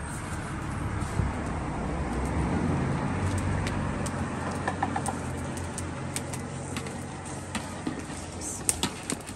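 A motor vehicle's engine hum grows louder over the first few seconds and then slowly fades, like a vehicle passing by. A few sharp clicks come near the end.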